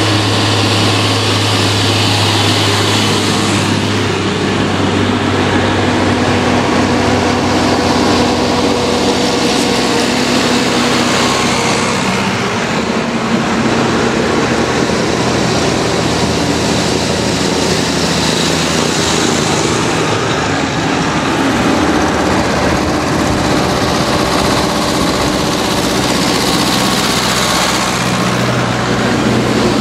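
A procession of farm tractors driving past one after another, their diesel engines running steadily. The engine note changes a few times as different tractors come through, and a tractor passes close by near the end.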